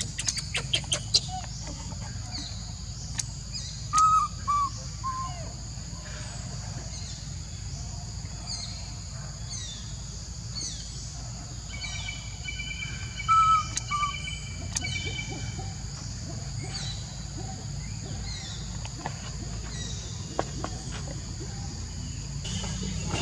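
Birds calling outdoors: many short falling chirps repeat over a steady high buzz. A louder three-note call comes about four seconds in and again about thirteen seconds in.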